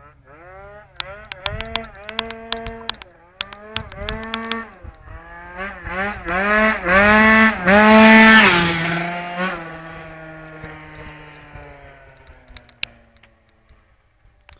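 Tuned two-stroke Yamaha Aerox scooter with a Stage6 kit revving in repeated rising surges as it rides up and passes close by, loudest as it goes past. The pitch then drops and fades as it rides away.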